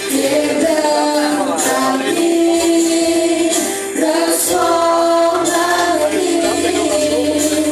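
Portuguese worship song: a woman singing long held notes over instrumental accompaniment.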